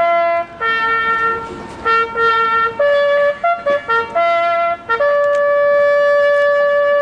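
Bugle call sounding over the gathering: a run of short and held notes on a few fixed pitches, then one long held note from about five seconds in.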